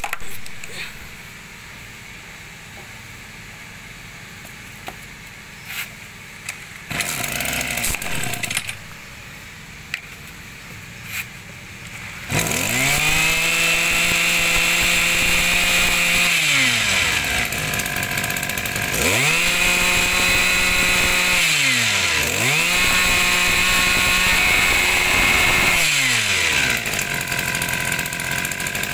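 Backpack brush cutter's small engine: after a few knocks, it starts about twelve seconds in and is revved high three times, each rev held for three or four seconds with a high whine before dropping back. It settles to idle near the end.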